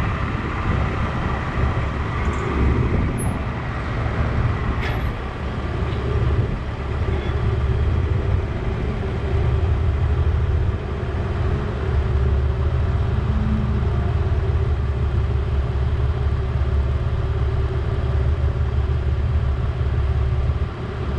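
Vehicle engine running steadily, a continuous low rumble.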